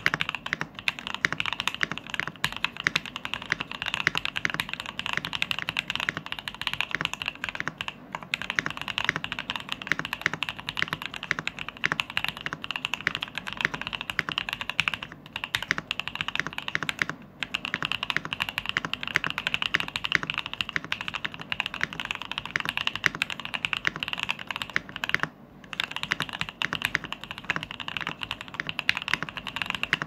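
Continuous fast typing on a custom mechanical keyboard with SP-Star Polaris Grey switches, Aifei Yuru ABS keycaps, a top-mount acrylic plate with plate foam and an acrylic case: a dense run of keystrokes with a few brief pauses.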